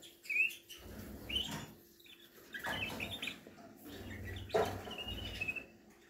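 A spoon stirring and scraping crumbly dry bird food in a bowl, in several short bouts, with canaries chirping over it: a few short chirps and a longer wavering call near the end.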